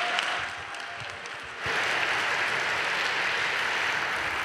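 Audience applauding, a steady patter of many hands clapping that jumps abruptly louder about a second and a half in.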